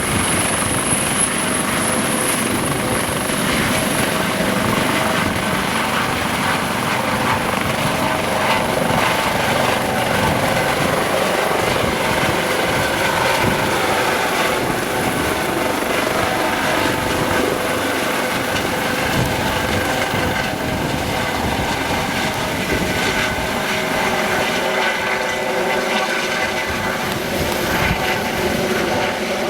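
Eurocopter AS365 Dauphin twin-turbine helicopter running loud and steady, its turbine whine and rotor noise held at an even level, with a high thin whistle that fades a few seconds in.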